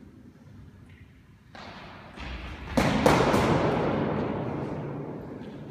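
Padded, tape-wrapped practice swords clashing in sparring: one hit about a second and a half in, then a quick run of three sharp strikes near the three-second mark. Each strike rings on in a long echo off the bare walls of the court.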